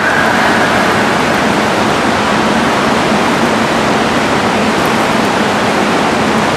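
Steady rushing noise of an indoor swimming pool: water moving and splashing, with no distinct individual splashes standing out.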